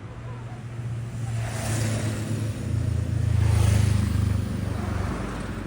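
A motor vehicle passing close by: a low engine rumble swells to its loudest about three and a half seconds in, then fades away.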